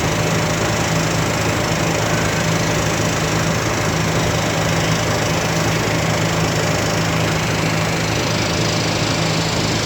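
Ferry engine running steadily, a constant low drone under an even rushing noise.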